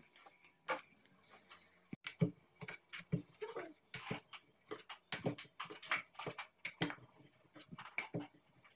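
Irregular light knocks and clicks of kitchen items being handled, with a few brief sounds in between.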